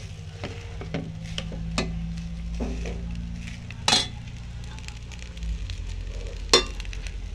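Egg fried rice sizzling in a pan as it is stirred, with a series of sharp knocks of the stirring utensil against the pan, the loudest about four seconds in and near the end.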